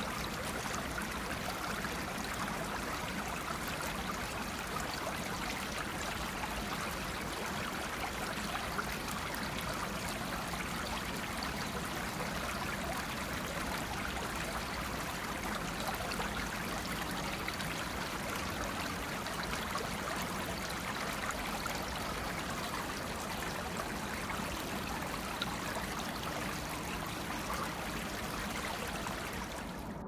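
Steady rush and trickle of river water washing against the rocks of the bank.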